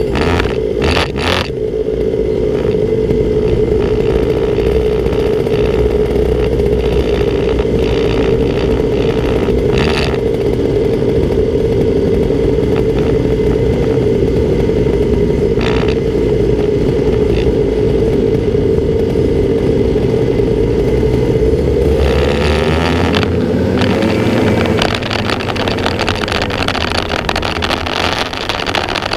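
Racing kart engine heard onboard, holding a steady high note for about twenty seconds, then wavering and dropping in pitch near the end as the kart slows. A few sharp knocks and rattles break through the engine note.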